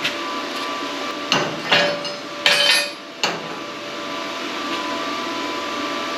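Cut steel pieces knocking and clanking against metal a few times, with a longer rattling clatter about two and a half seconds in, over the steady hum of shop machinery with faint steady whine tones.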